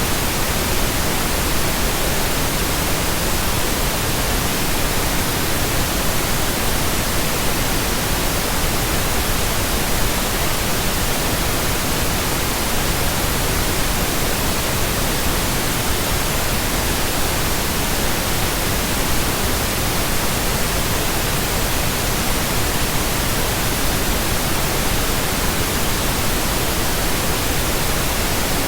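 Steady, unchanging pink noise, an even hiss across the whole range with no tones or breaks.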